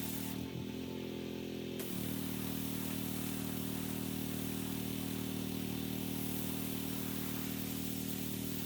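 Small gasoline engine of a pressure washer running steadily at constant speed. Its pitch wavers briefly in the first two seconds, then holds.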